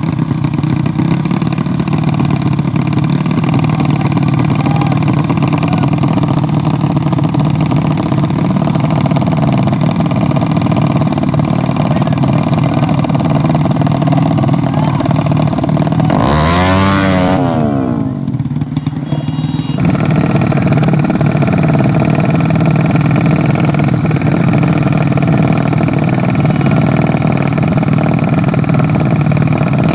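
Motorcycle engines running steadily. About halfway through, one engine revs up and back down. A muffled stretch of about two seconds follows before the steady engine sound returns.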